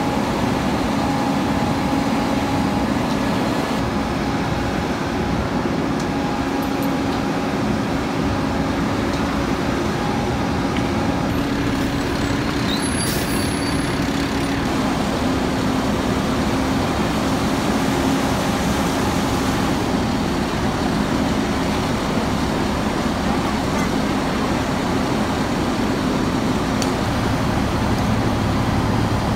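Fire engine's diesel engine running steadily at raised revs to drive its water pump, a constant mechanical drone with a steady hum.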